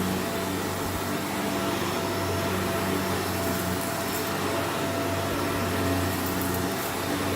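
Vacuum cleaner running steadily with a constant motor hum, picking up loose, crunchy dirt, with faint crackles of debris being sucked up a few seconds in.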